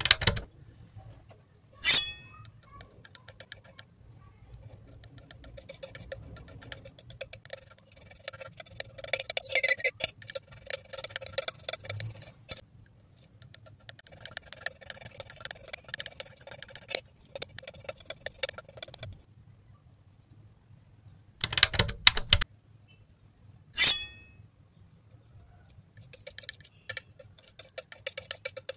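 Metal palette knife working thick wet paint on a smooth palette: runs of small sticky clicks and ticks as the blade folds and spreads the paint. Two sharp ringing taps stand out, one about two seconds in and one a few seconds before the end, with a short burst of loud clicks just before the second.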